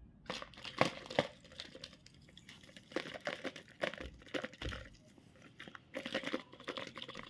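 A candy or chocolate wrapper being crinkled and torn open by hand, in irregular bursts of crackling.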